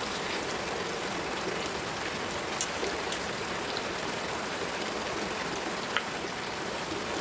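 Steady rain hiss, with a few sharp clicks about two and a half, three and six seconds in.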